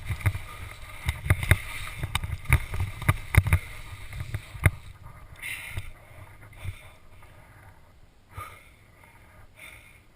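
GoPro Hero HD helmet cam chattering in its mount while skiing, with rapid clicks over a rough rumble of skis running on snow. This dies down about five seconds in, leaving softer heavy breathing.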